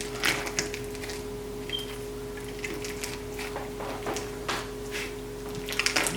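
Clear crunchy slime with plastic beads kneaded through it being squeezed and pressed, giving irregular crackles and sharp clicks. The clicks come thickest near the end.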